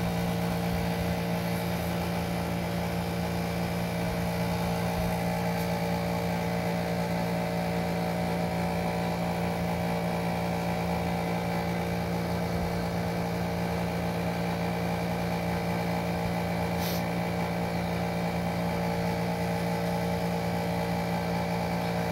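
Steady motor hum that does not change: a constant low drone with several higher steady tones above it.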